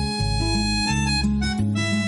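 Background music: an instrumental track with guitar and a steady bass line.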